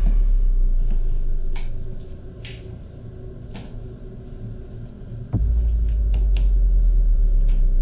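Deep low rumbling drone, as in a film's tense underscore. It fades about two seconds in and returns with a sudden deep hit about five seconds in, with faint scattered clicks and rustles between.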